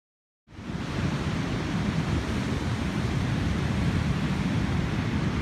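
Steady rush of wind on the microphone over ocean surf breaking on the beach, cutting in suddenly about half a second in.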